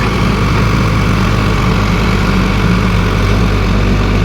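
Heavy diesel engine of a tractor-mounted pile-boring drill running steadily at a constant speed.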